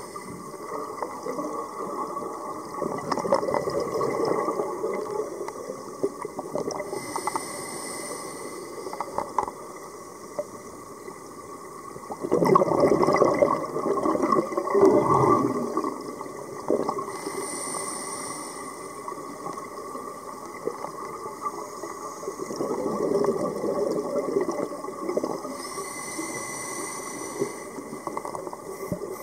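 A scuba diver breathing through a regulator underwater: a short hiss on each inhale, then a rush of exhaled bubbles. There are about three slow breaths, roughly nine seconds apart, and the exhale near the middle is the loudest.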